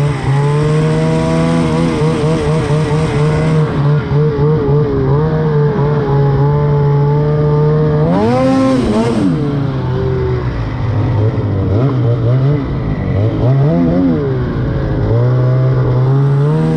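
Snowmobile engine running under throttle, its pitch wavering constantly as the throttle is worked. About eight seconds in it revs up sharply and falls away, runs lower and uneven for several seconds, then climbs back to a steadier pitch near the end.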